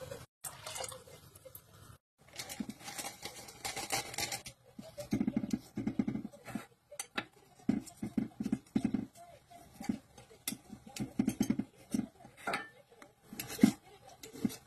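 Kitchen knife cutting raw chicken breast into pieces on a cutting board: a long run of short, dull knocks of the blade through the meat onto the board, coming in irregular clusters, with a few sharper clicks.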